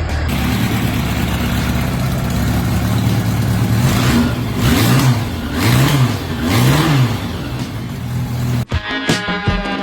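Yamaha FZR1000 EXUP's inline-four engine running steadily, then blipped three times in quick succession, each rev rising and falling back. Music cuts in near the end.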